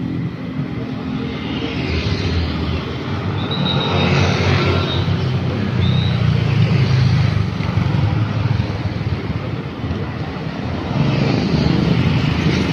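Road traffic passing close by: motor scooters and cars driving past with steady engine and tyre noise. It swells as vehicles go by, loudest about halfway through and again near the end.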